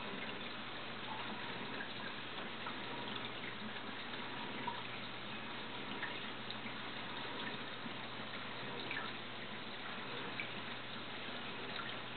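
Steady running-water trickle of a circulating aquarium, with small drip-like ticks here and there over a low steady hum.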